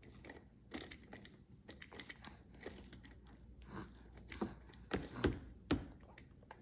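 A child chewing a mouthful of hard-boiled egg close to the microphone: irregular wet mouth and chewing sounds, with a few louder ones about five seconds in.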